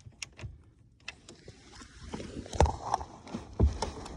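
Hand work on small metal parts: clicks and scraping of a screwdriver turning a wiring terminal screw, with two louder knocks about two and a half and three and a half seconds in.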